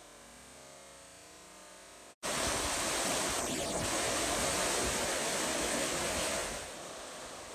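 Floodwater of a river in spate rushing and churning over rapids and a logjam of debris. It is faint at first, cuts out for a split second about two seconds in, comes back much louder, then eases somewhat near the end.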